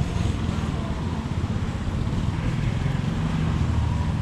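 Low rumble of motorbike traffic in a narrow city lane, mixed with wind buffeting the action-camera microphone.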